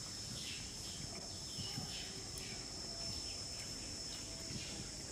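Outdoor ambience of a steady, high-pitched insect drone, with short chirps repeating over it.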